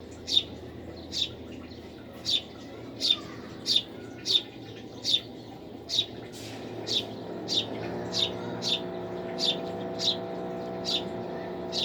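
A bird repeats a single short, high chirp that falls in pitch, about one and a half times a second. About eight seconds in, a steady low hum starts under the chirps.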